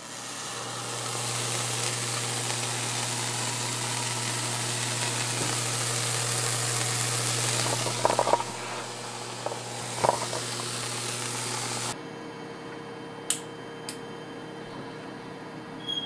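Solid-state Tesla coil running continuous-wave on smoothed DC: the streamer discharge off its topload makes a steady hiss over a low buzz, with a few sharp crackles about eight and ten seconds in. The coil shuts off suddenly about twelve seconds in, leaving a quieter hum and two clicks.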